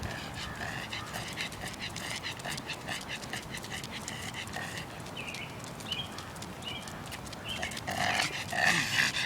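A dog panting quickly and rhythmically on a walk, with a few short bird chirps in the middle.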